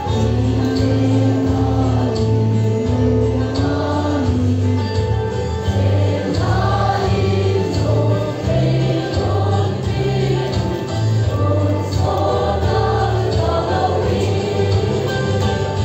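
Young choir singing a gospel hymn in unison over a steady, pulsing low accompaniment.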